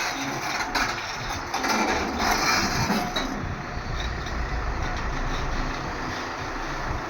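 Hyundai 140LC-9 excavator's diesel engine running steadily during loading work, with a couple of short hissing bursts in the first three seconds.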